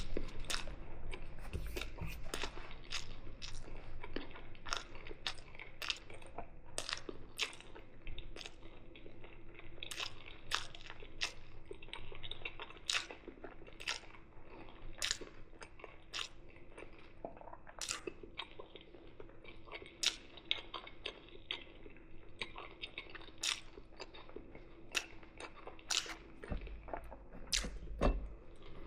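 Close-miked toothless chewing: wet mouth smacks and clicks come a few times a second at an uneven pace as food is worked with the gums.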